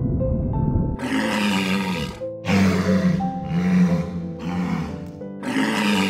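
Walruses giving four hoarse, deep roars, starting about a second in, over background music.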